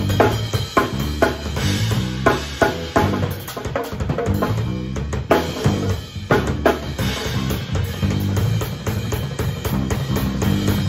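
Live jazz-funk band playing a groove, with the drum kit's bass drum and snare hits up front over electric bass and electric guitar.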